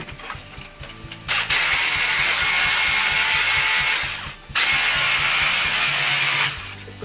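Power drill with a 6 mm bit drilling into a concrete ceiling to take wall plugs, with a steady whine over the grinding. It runs in two spells of about three and two seconds, with a short stop between them.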